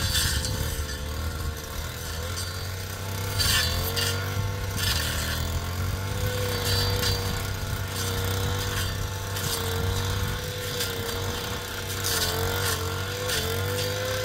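An engine running steadily, with a high whine that wavers slightly in pitch and a few short knocks or rattles over it.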